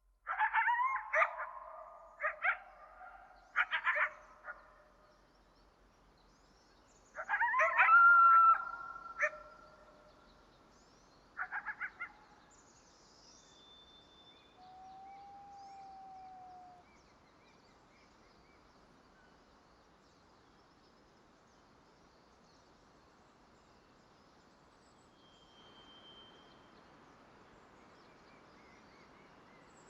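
Loud, harsh animal calls in three bouts over the first twelve seconds, then a quiet natural background in which a bird gives a few single held whistles.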